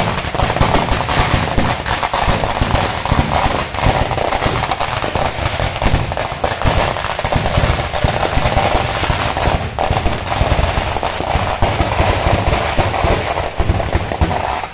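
Firecrackers and fireworks going off in a dense, rapid, unbroken barrage of bangs and crackles at a fireworks display.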